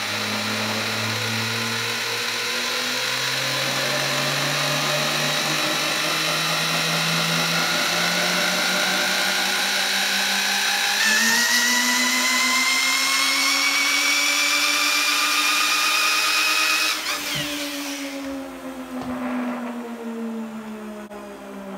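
Electric drill spinning a large pulley on a three-phase motor, which belts round a DC motor: a steady power-tool whine that rises slowly in pitch and steps up sharply about halfway through. Near the end the drill cuts out, and the belt-coupled motors coast on with a hum that falls in pitch as they slow down.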